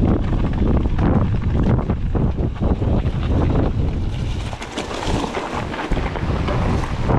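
Strong wind buffeting the microphone with a heavy low rumble, mixed with a fast, irregular clatter of knocks and rattles from a mountain bike running over rough trail. The wind rumble eases for a couple of seconds past the middle, leaving more hiss and rattle, then returns.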